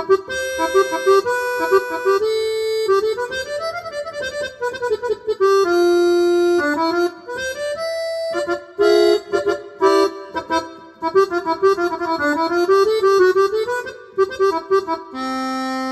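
Yamaha DGX670 digital piano playing its sampled jazz accordion voice: a right-hand melody with quick runs up and down, ending on a held note.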